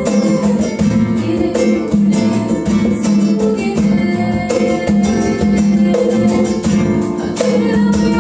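Acoustic guitar strummed and plucked in a steady rhythm, with hand-drum percussion keeping time.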